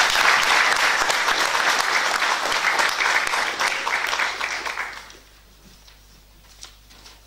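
Audience applauding steadily, the clapping dying away about five seconds in.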